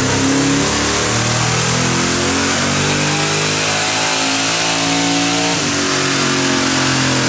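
Twin-turbocharged 5.3 L LS V8 in a Chevy S10 running under load on a chassis dyno during tuning, quiet through its full exhaust with mufflers. Its pitch holds steady and then steps up and down between engine speeds.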